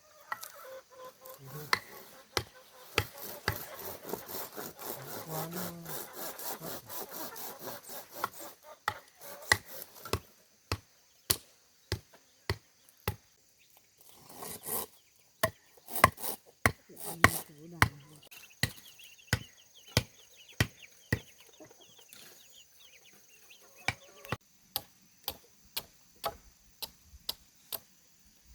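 Bamboo being cut by hand. Sharp wooden knocks come at a steady pace, roughly one every half to three-quarters of a second, with a rasping sawing sound beneath them for the first several seconds and again briefly midway.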